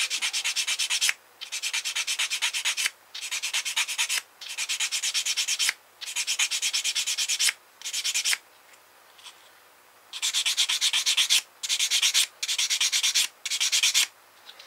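Sanding stick rubbed quickly back and forth along the edge of a plastic model-kit torpedo half, smoothing off the nubs left by the sprue gates. The strokes come in about ten short scratchy bursts, with a pause of nearly two seconds in the middle.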